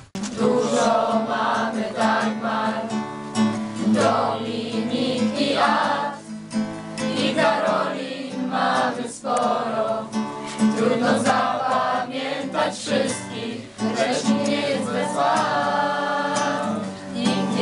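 Several voices singing a song together to a strummed acoustic guitar.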